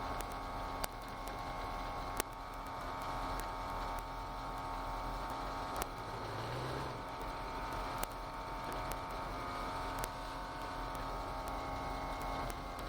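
Ford GT40's V8 engine running at a steady pace, heard from on board the car, with sharp clicks every second or two.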